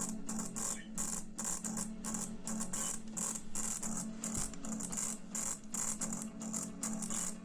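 Music with a fast, even high percussion beat, about four strokes a second, over a steady low tone.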